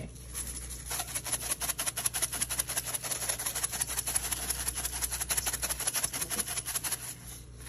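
Spice shaker shaken rapidly over a stainless steel bowl of raw lamb chops, a fast, even run of dry rattling shakes that stops just before the end.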